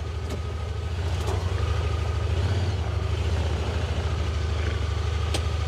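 Honda side-by-side utility vehicle's engine running as it drives slowly, a steady low hum that is nice and quiet.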